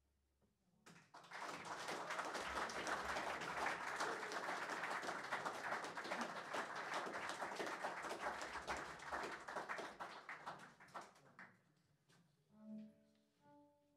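Audience applause: many hands clapping, starting about a second in, holding for about nine seconds, then dying away.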